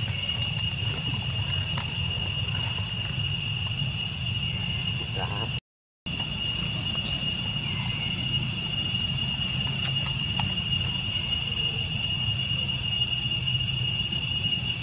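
Forest insects droning steadily on a few high, unchanging pitches over a low rumble. The sound cuts out completely for about half a second near the middle.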